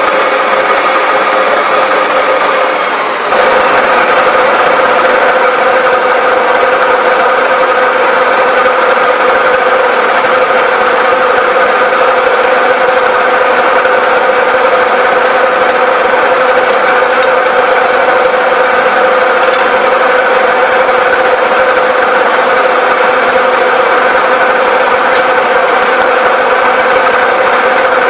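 1V61 screw-cutting lathe running steadily with a constant gear whine, turning a steel brake-caliper guide pin; the sound dips and steps up slightly about three seconds in.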